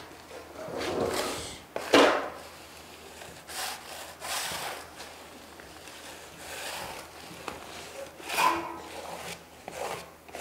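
Flat trowel scraping and rubbing over Kerdi waterproofing membrane bedded in thinset mortar, pressing out air bubbles and excess mortar, in a run of irregular strokes. The loudest, sharpest scrape comes about two seconds in.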